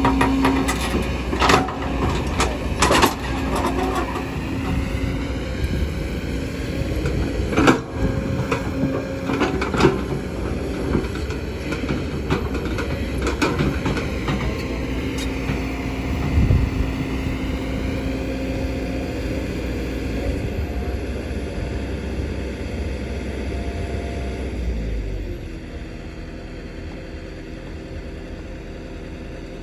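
Excavator working, its diesel engine running steadily with repeated sharp clanks and knocks, most of them in the first ten seconds. About 25 seconds in the engine note changes and the sound grows quieter.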